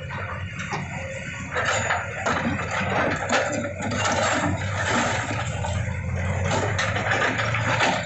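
Komatsu PC210 hydraulic excavators' diesel engines running steadily while a bucket breaks down a building's front, with masonry crumbling and scraping from about a second and a half in.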